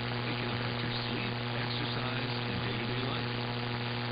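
Noisy radio reception: a steady hiss with a strong buzzing hum, and what may be a faint voice buried underneath.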